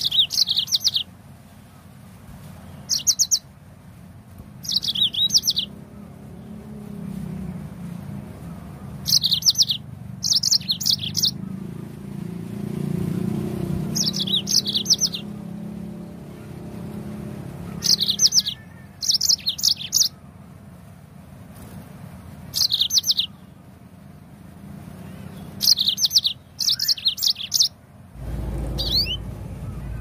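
Yellow-fronted canary (Mozambique canary) singing short, high song phrases of rapid notes, each about a second long, repeated about a dozen times with pauses of one to three seconds between them.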